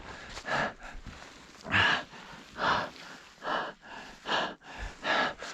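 Heavy, rhythmic breathing of a climber breaking trail uphill through deep snow: short forceful breaths about once a second, the sign of hard exertion.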